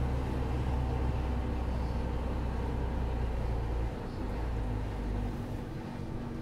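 Mercedes-Benz 40-tonne articulated truck's diesel engine running steadily at low speed, a deep even hum. It drops in level about four seconds in.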